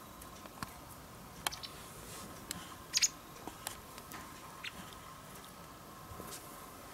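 White wagtail giving a short, high two-note call about three seconds in, with a few faint ticks scattered through a quiet, steady background.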